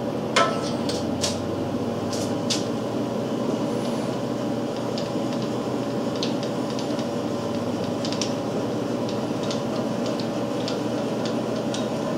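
Electric motor of a homemade radial drill running steadily with an even hum, with a few sharp clicks in the first seconds and lighter ticks after as the handwheel on the drill head is worked.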